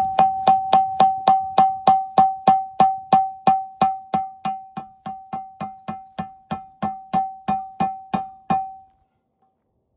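Repeated metal strikes on the steel plate of an old TV picture tube, about three a second, each leaving a clear ringing tone at one pitch, stopping about nine seconds in.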